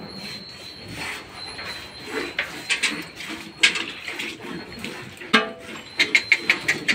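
Hand milking a Gir cross cow: milk squirting into a pail in short spurts, a few scattered ones and then a quick run of about six near the end.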